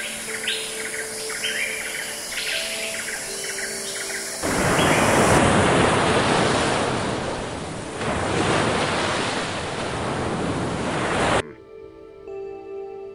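Surf washing onto a beach: a loud, even rush of waves lasting about seven seconds that cuts off abruptly. Before it come a few short high chirps over soft background music, and music alone is left near the end.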